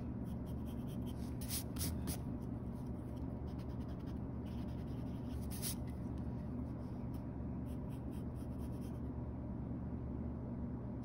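Graphite pencil sketching on sketchbook paper: scratchy strokes with a few sharper ones between one and two seconds in and again near the middle, over a steady low hum.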